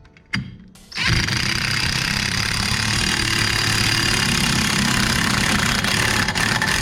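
A power tool running steadily for about six seconds, starting abruptly about a second in, used to work the single bolt that forces a seized rear brake drum off.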